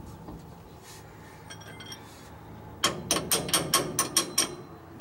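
A quick run of about nine sharp metallic clicks, roughly five a second, starting about three seconds in: hand tools working on metal on the underside of a truck, at the driveshaft's U-joint.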